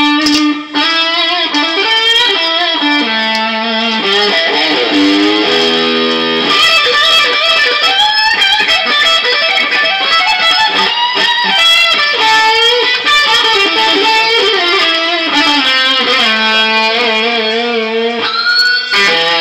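Les Paul-style electric guitar played through an amplifier: a continuous run of melodic lead lines, with a rising string bend near the end.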